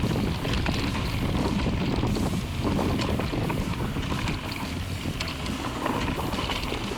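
Mountain bike rolling fast down a dirt forest trail: steady tyre rumble with wind buffeting the microphone and short rattles and clicks from the bike as it goes over bumps.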